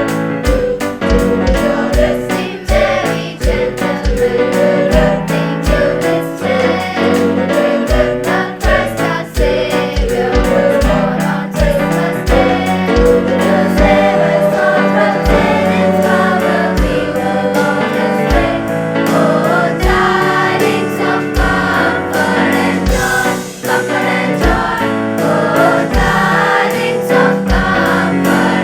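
High-school choir singing a song in parts, over a steady low beat.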